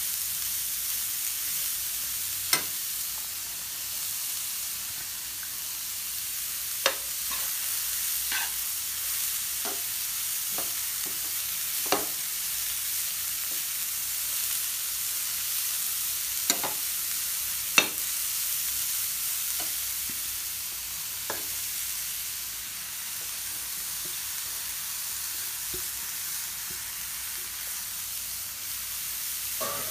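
Grated carrot and beetroot sizzling in oil in a nonstick frying pan, a steady hiss, while a spatula stirs them, clicking and scraping against the pan every few seconds.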